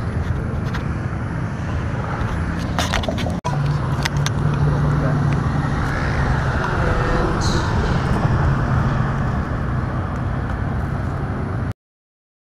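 Steady roadside traffic noise with a low hum and a few handling clicks, broken by a brief dropout about three and a half seconds in; it cuts off to silence near the end.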